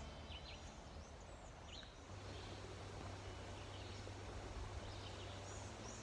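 Outdoor ambience of small birds giving short, high chirping calls about once a second, over a steady low hum.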